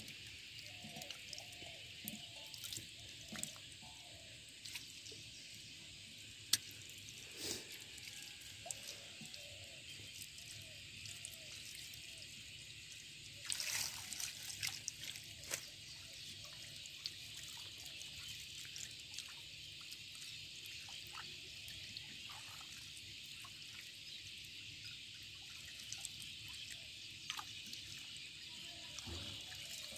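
Shallow water trickling steadily over mud, with scattered small drips and clicks and a louder splashing patch about fourteen seconds in.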